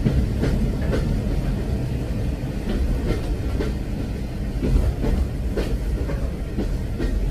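Train running along the track: a steady low rumble with the clickety-clack of wheels over rail joints, clacks coming about half a second apart in small groups.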